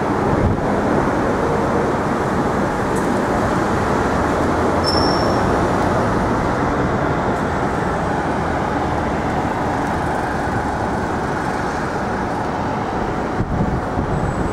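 Steady city street traffic noise, a continuous dense rumble of vehicles.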